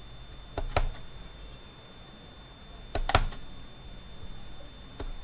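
Computer mouse clicking: two quick clicks just under a second in, two more about three seconds in, and a single click near the end. A faint steady high-pitched whine runs behind them.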